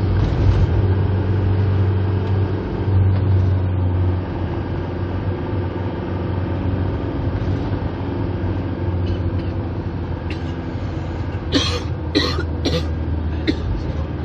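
Engine drone and road noise inside a moving car's cabin, with a steady low hum. Near the end there are four short, sharp sounds within about two seconds.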